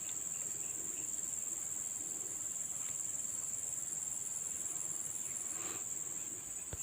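Steady, high-pitched chirring of insects, a continuous shrill drone that does not let up.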